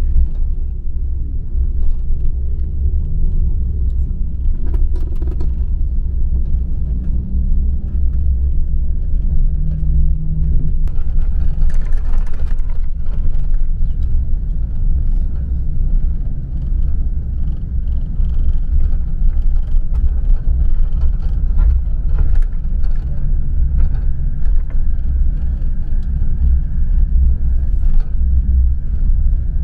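Steady low rumble of a coach's engine and road noise, heard from inside the passenger cabin while it drives.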